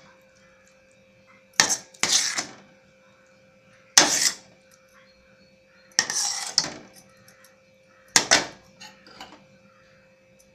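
Steel ladle scraping and clinking against a stainless-steel kadai as thickened rava kesari is scooped and stirred, in short bursts about every two seconds.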